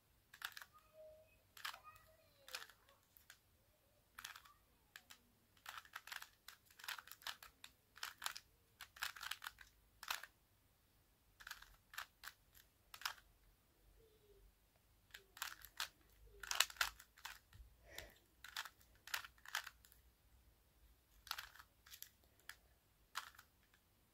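Faint, quick clicking of a speed cube's plastic layers being turned, in irregular runs of turns with short pauses between them.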